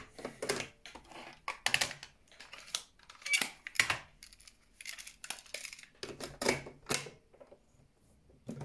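Mechanical clicks and clunks from a Unitra Kasprzak RM 222 radio-cassette recorder's cassette deck: the cassette door opened, a tape put in, the door snapped shut and the piano-key switches pressed. The clicks come irregularly, several a second at times, and thin out near the end.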